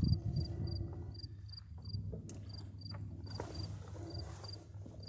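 A cricket chirping steadily in short high pulses, about three a second, over a low rumble. A thump near the start and a few sharp clicks come from the rigging hardware being handled.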